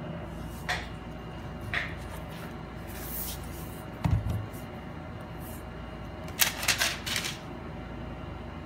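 A MacBook Pro laptop being handled on a hard table: a few light clicks, a dull thump about four seconds in as it is turned over and set down, then a cluster of clicks and rubbing at about six to seven seconds as the lid is opened. A faint steady hum lies underneath.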